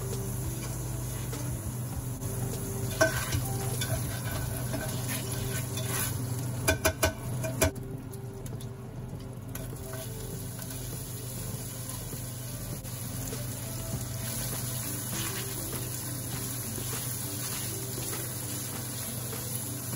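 Hot oil sizzling in a stainless steel frying pan as sliced onions are tipped in and stirred with a silicone spatula. There are a few sharp clinks of utensil on plate or pan, one a few seconds in and a quick cluster near the middle.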